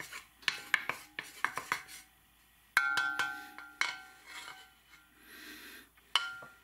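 Wooden spatula scraping and tapping around the inside of a hot cast-iron roaster while spreading oil to season it. A quick run of scrapes and clicks comes first, then a louder knock about three seconds in that rings briefly, followed by a few more taps.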